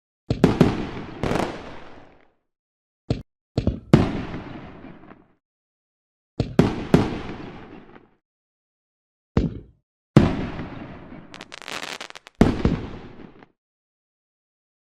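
Fireworks going off: a string of separate bangs, each trailing away over a second or two, with three in quick succession around 3 to 4 seconds in and a brief spell of crackling near 12 seconds. Gaps of dead silence fall between the groups of bursts.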